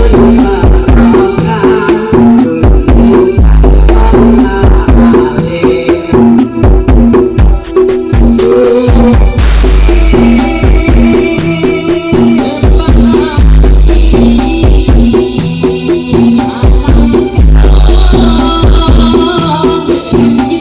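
Loud DJ dance music played through a large carnival sound system, with a steady beat, fast shaker-like percussion and heavy sub-bass pulses.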